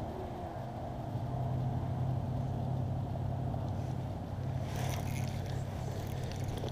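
A motor hums steadily and low throughout. In the last two seconds a spinning reel is cranked with quick clicks and rattles as a fish is reeled up through the ice hole.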